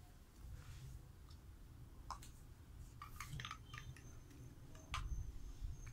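Light clicks and taps of plastic toy food pieces being handled, scattered and faint, with a soft low bump of handling noise about five seconds in.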